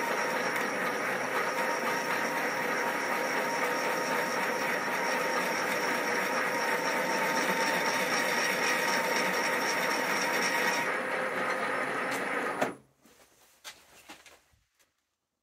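Milling machine spindle driving a Wohlhaupter UPA4 boring and facing head, its tool turning down the external bearing journal of a shaft: a steady machining whine with several held tones. It stops abruptly about 13 seconds in, leaving near silence with a few faint clicks.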